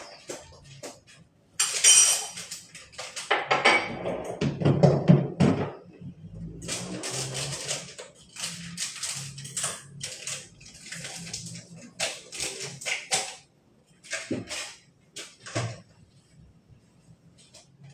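Dishes and cutlery clattering and clinking in irregular bursts, loudest from about two to six seconds in.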